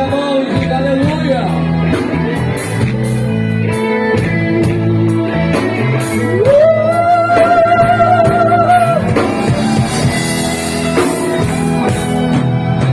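Live gospel-rock band playing: drum kit, electric guitar, bass and keyboard, with a long held melody note a little past halfway through.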